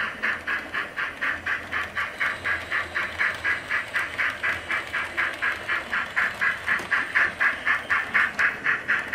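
Simulated steam exhaust chuffs from a model pannier tank locomotive's on-board sound speaker: a rapid, even chuff of about four to five beats a second, as of a steam engine working steadily, growing a little louder in the second half.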